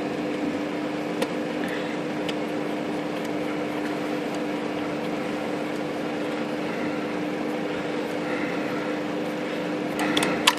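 Steady background hum holding one even tone, with a few faint clicks and a short run of louder clicks and knocks near the end from hands working on the metal typewriter.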